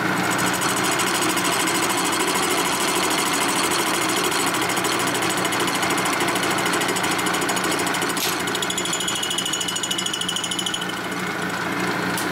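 Milling machine cutter sweeping the welded aluminium combustion chamber of a Harley-Davidson Panhead cylinder head on a 25-thousandths pass: a steady, rapid chatter of the cutter in the metal. A thin higher whine joins for a couple of seconds after the middle.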